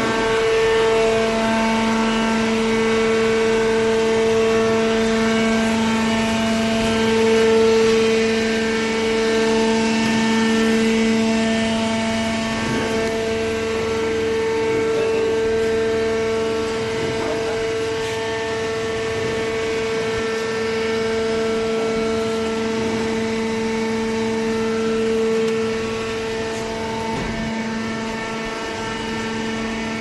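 Industrial hydraulic waste-paper baler's electric motor and hydraulic pump running with a steady droning whine, easing a little in loudness near the end.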